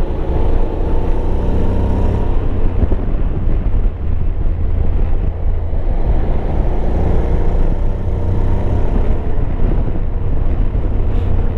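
Honda Forza 750's parallel-twin engine running at a steady cruise at about 45 mph, under a heavy low rush of wind on the riding camera's microphone.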